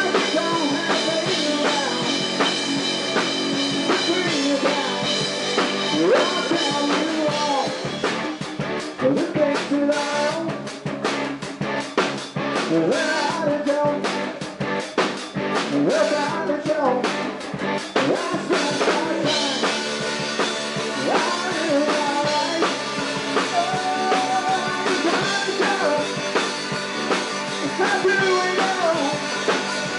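A rock band playing live in a rehearsal room: electric bass, electric guitar and drum kit, with singing. Through the middle the drums turn choppy and stop-start before the full groove comes back.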